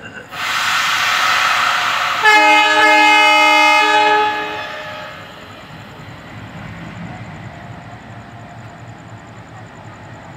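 An ALCO diesel locomotive blows its two-tone air horn for about two seconds, preceded by a loud hiss. After the horn, the locomotive's diesel engine runs with a low rhythmic throb as the train approaches.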